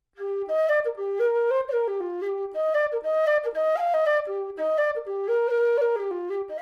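Nightingale low whistle playing a melody, starting a fraction of a second in. The notes change quickly, several a second.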